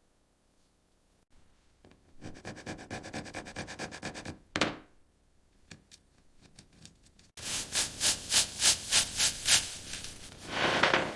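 Hand sanding or rubbing of a part, back-and-forth strokes a few times a second. The strokes start quietly about two seconds in, with a brief falling swish near the middle. They come back louder from about seven seconds in.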